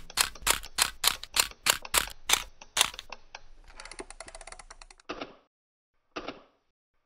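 Mechanical clicking sound effects, camera-shutter or typewriter-like: a run of sharp clicks about three a second for three seconds, then a fast fine rattle for about a second and a half, then three softer short hits about a second apart.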